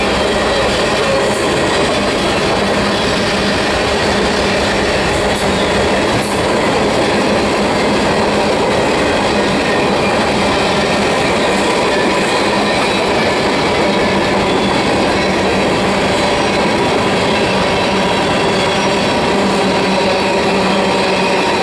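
Freight cars of a manifest train rolling past close by: a steady, loud rumble of steel wheels on rail.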